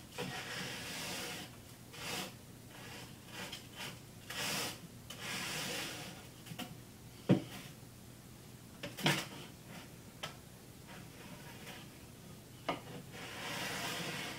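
Crushed coral gravel being scraped and pushed flat with a cutting board: intermittent gritty rubbing swishes, with a few short sharp knocks in between.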